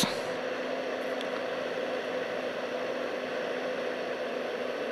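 Backhoe loader's diesel engine running steadily at low revs, a level hum under an even hiss.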